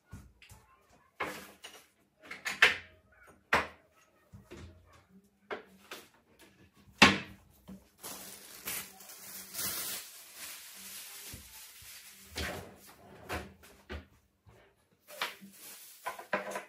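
Household clatter as things are picked up and set down on a table: a string of sharp knocks and clicks, with a plastic bag rustling for a few seconds in the middle.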